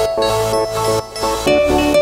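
Background music: a melody of short pitched notes over a steady beat.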